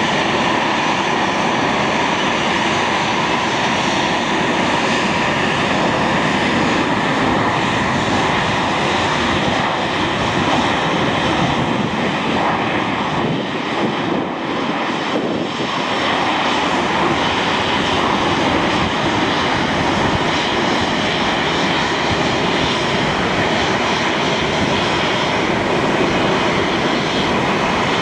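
Airbus A320-233's twin IAE V2500 turbofan engines running through the landing roll just after touchdown: a loud, steady jet rush with a steady whine of several tones on top. It dips briefly about halfway through.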